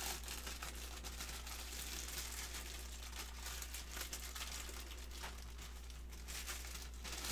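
Plastic packaging crinkling faintly as it is handled, a stream of small irregular crackles.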